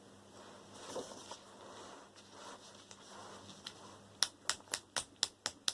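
Quiet handling of a plastic mains plug being worked on with a screwdriver, then about four seconds in a run of sharp, evenly spaced clicks, about four a second.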